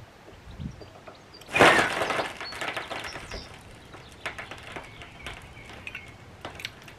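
A sudden crunching crackle about a second and a half in, then fainter scattered crackles and clicks: the shipping container's corner settling onto the sleeper and gravel as the bottle jack is let down.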